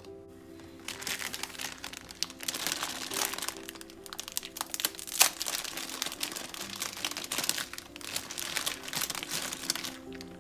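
Dense, irregular crinkling and crackling from food preparation, over steady background music.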